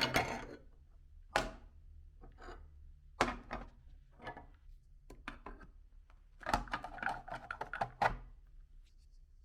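Irregular clicks and knocks, with a quick cluster of them near the end, over a faint steady low hum.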